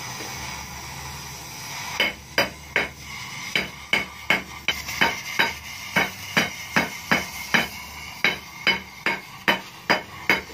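A gas torch hissing steadily, then from about two seconds in a run of regular hammer blows on metal, about two or three a second, each with a short metallic ring, as the muffler's insides are worked loose.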